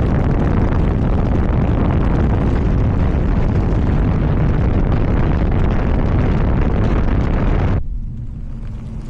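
Loud steady rushing noise, heaviest in the low end, that drops away suddenly near the end for under two seconds, leaving only a low hum.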